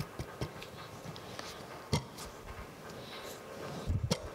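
Light clicks and taps of metal parts being handled as a broken piece is nudged into line in a locking C-clamp on a gear casting, with a sharper click about two seconds in and another near the end.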